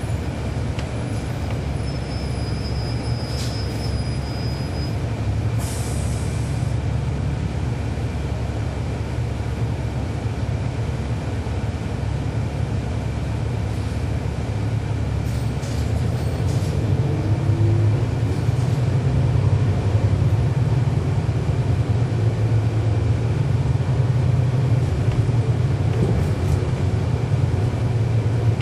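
Inside a 2012 NABI 40-SFW transit bus: the Cummins ISL9 inline-six diesel runs with a steady low drone while the bus drives, growing somewhat louder about two-thirds of the way through. A brief high squeal comes near the start, and a few light rattles and clicks come from the cabin.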